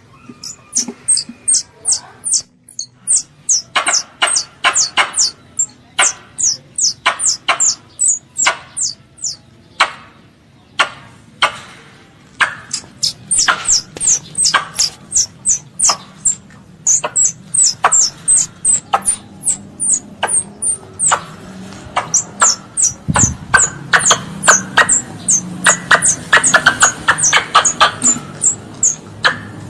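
Squirrel calling: a long series of sharp, high chirps, each falling in pitch, about two to three a second, coming faster and louder in the last third.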